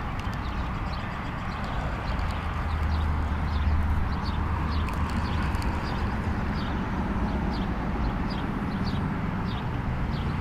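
Steady low rumble of wind on the microphone, swelling about two seconds in, with short high chirps repeating a few times a second throughout.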